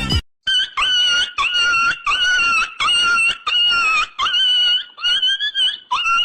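A run of about eleven short, high-pitched squeals, roughly two a second, each sliding sharply up and then held.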